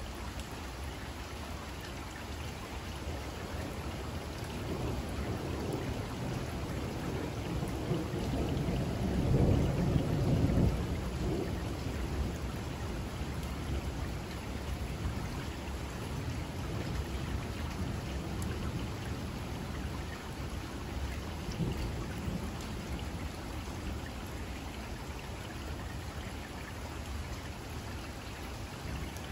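Steady rain with a low rolling rumble of thunder that builds a few seconds in, peaks about a third of the way through, and then slowly dies away.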